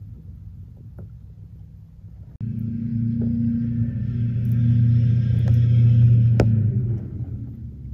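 A motor vehicle's engine running with a low rumble; about two and a half seconds in the engine sound jumps suddenly louder, holds steady, and drops back around seven seconds, with a sharp click shortly before.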